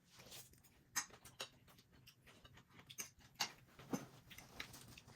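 Eating noises close to the microphone while noodles are eaten: a handful of short, irregular clicks and mouth smacks spread over a few seconds.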